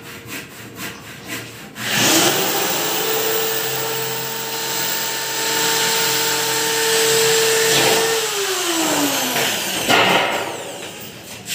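Corded electric drill spinning up about two seconds in and running at a steady full-speed whine while boring into green sheet metal. It is released about eight seconds in and winds down with a falling pitch, and a sharp knock follows near the end.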